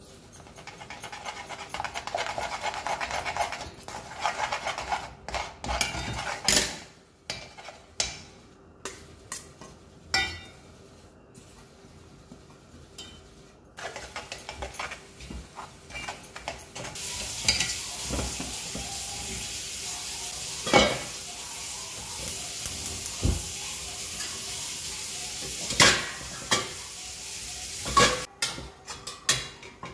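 A metal spoon stirs and scrapes inside an aluminium kadai, first through a bubbling jaggery syrup and then through the thick coconut-and-jaggery filling mixed into it. A steady sizzle runs through the second half, and the spoon knocks sharply against the pan several times.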